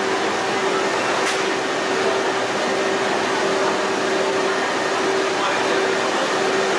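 Steady din of processing-plant machinery and ventilation: a loud, even hiss with a steady hum tone beneath it. A single sharp knock comes about a second in.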